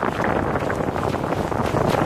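Wind buffeting the microphone over water rushing and splashing along the hulls of a Hobie Getaway catamaran under sail: a steady rushing noise.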